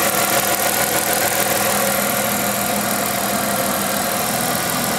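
A 1998 Plymouth Voyager's 3.3-litre V6 idling steadily, heard close up over the open engine bay.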